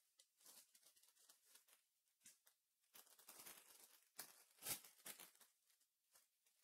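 Faint rustling and light clicks of trading cards and their packaging being handled, with a louder rustle about four and a half seconds in.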